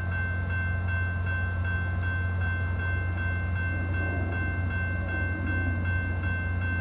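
Railroad crossing warning bell ringing in a fast, even rhythm, about three strikes a second, over a steady low rumble of a diesel train engine.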